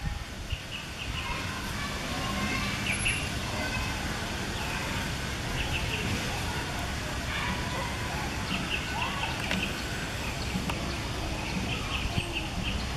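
Outdoor ambience of small birds chirping in short, quick bursts several times, over a steady low background rumble.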